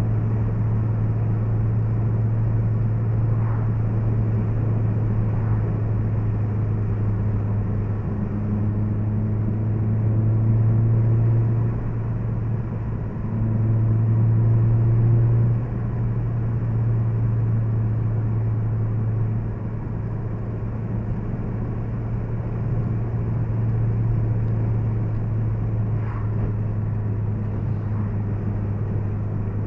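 Honda Civic Si's K20Z3 four-cylinder engine droning steadily at about 55 mph cruise, heard inside the cabin with road and tyre noise. The drone swells louder twice in the middle, then eases a little.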